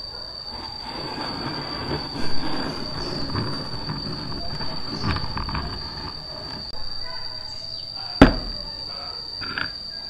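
A vintage wooden box coffee grinder being shifted about on a wooden workbench, with a sharp knock about eight seconds in, over a steady high insect trill.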